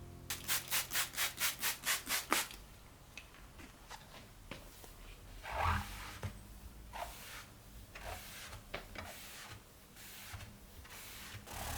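About nine quick, even rubbing strokes in the first two seconds or so, roughly four a second, like hand scrubbing or brushing on a surface. After that come scattered softer rubs and light handling knocks.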